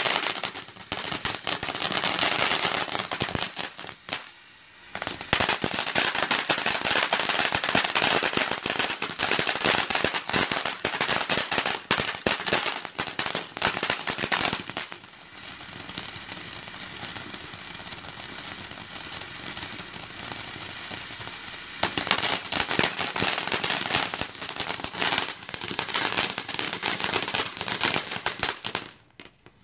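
Ground fountain firework spraying sparks: a hissing rush packed with rapid small crackling pops. It dips briefly about four seconds in, runs quieter through the middle, builds again and falls away near the end.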